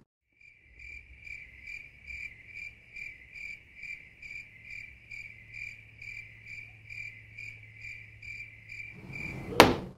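Cricket chirping, used as a sound effect: one even chirp repeated a little over twice a second over a faint low hum, starting and stopping abruptly. A single sharp click comes near the end.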